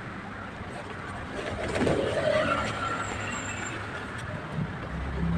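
Bird calls, a few short notes about two seconds in, over a low steady background hum.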